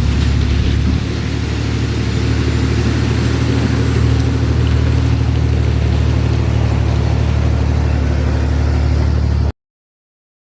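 A vehicle engine running steadily and loudly, cutting off abruptly near the end.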